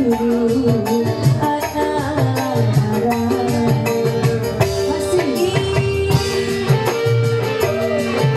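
Live dangdut band music at full volume: a steady hand-drum beat under a keyboard melody, with a woman singing into a microphone through the PA.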